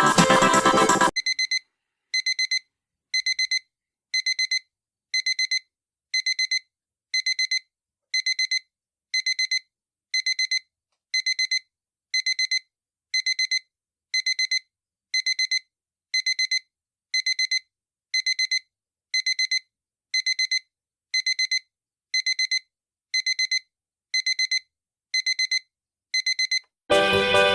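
Electronic alarm-clock-style beeping: a steady high-pitched beep repeated in quick clusters, about one cluster a second, with silence between. Music plays briefly at the start and comes back near the end.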